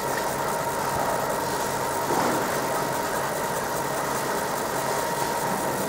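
Laser marking machine running while it engraves a photo on silver: a steady hum and hiss with a thin high tone held throughout.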